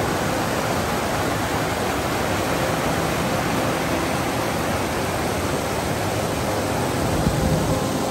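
Steady rush of river water pouring over granite ledges in small cascades and rapids. A short low rumble comes in near the end.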